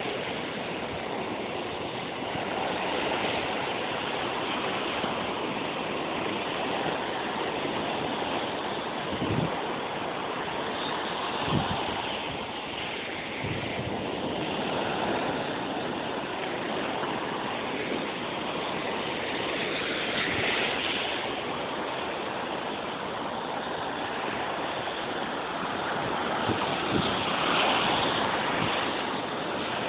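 Ocean surf: small waves breaking and washing up the sand in a steady rush, swelling a little as each wave runs in. A couple of brief low bumps about a third of the way in.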